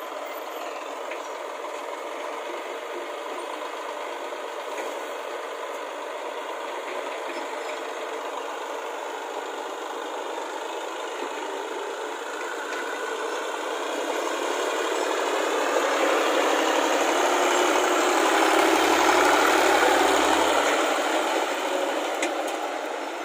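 Diesel engines of a JCB 205 crawler excavator and a Massey Ferguson tractor running steadily. The tractor, pulling a trolley loaded with earth, drives off and passes close: its engine grows louder over the second half, with a deep rumble, then eases off near the end.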